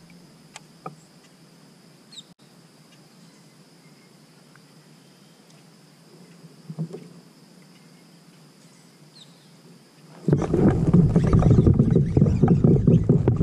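Quiet open-water ambience from a kayak, with a few small clicks, a couple of faint bird chirps and a faint steady high tone. About ten seconds in, a loud rushing noise starts abruptly and carries on.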